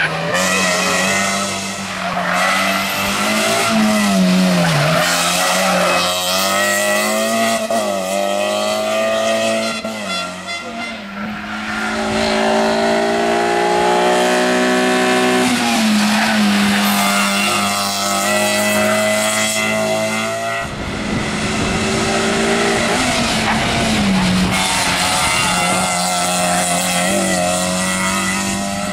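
Toyota Yaris Cup rally cars driven hard on a tarmac stage, one after another. The engine pitch climbs through the gears and drops sharply under braking into corners.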